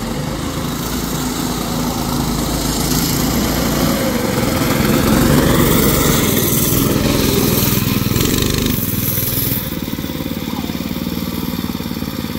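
Predator 6.5 hp single-cylinder four-stroke engine on a drift trike running under throttle. It grows louder to a peak about halfway as the trike drives past. A little before the end it drops to a steady, lower running sound.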